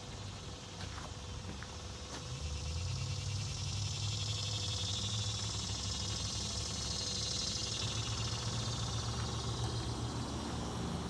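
Outdoor background sound: a low steady hum that grows louder about two seconds in and stays, with a high buzzing haze swelling through the middle.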